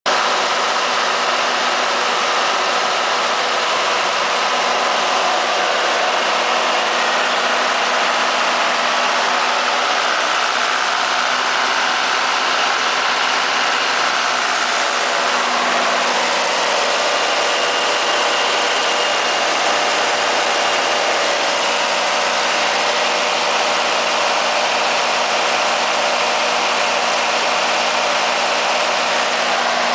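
Kohler 80 kW standby diesel generator set running steadily at constant speed, its John Deere 4045 four-cylinder turbocharged diesel engine heard with the enclosure panels open.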